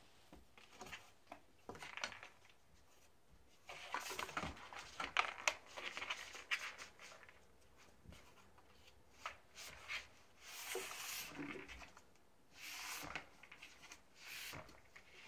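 A cat nosing and pawing at a cardboard treat puzzle box with a few pieces of dry kibble inside, making irregular scuffs and clicks against the cardboard. The busiest stretch is from about four to seven seconds in, with shorter flurries later.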